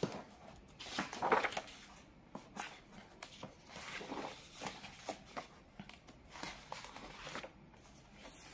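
Paper pages of a picture book being turned and smoothed flat by hand: several soft rustles and swishes.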